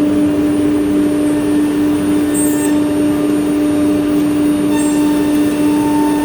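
CNC machining centre running, its spindle giving a loud steady hum with machine noise around it; a second, higher steady tone joins about five seconds in.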